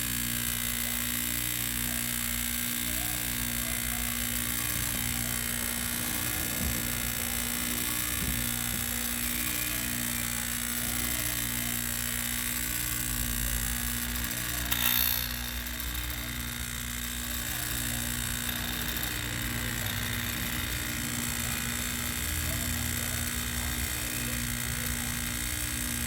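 Refrigeration vacuum pump running steadily, evacuating a refrigerator's sealed system with air still left in it, with a faint regular pulsing about once a second. A brief clatter about 15 seconds in.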